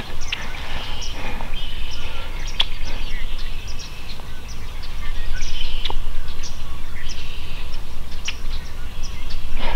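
Wind buffeting the microphone, louder in the second half, with small birds chirping in short, scattered calls.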